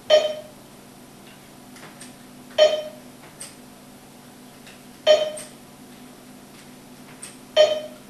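An electronic alert tone sounding four times at an even pace, about two and a half seconds apart, each a short ringing beep that fades quickly, with faint keyboard clicks between.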